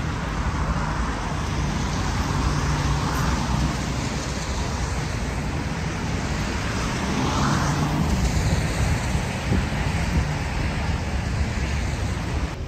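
Steady road traffic noise, with cars passing that swell up and fade away about three seconds in and again about seven seconds in.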